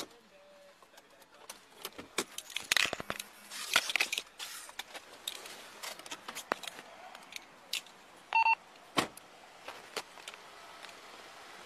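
Metal jangling, clicks and rattles as a police officer moves about in a Ford patrol car and opens the driver's door. A short electronic beep comes about eight seconds in, and a sharp knock follows just after.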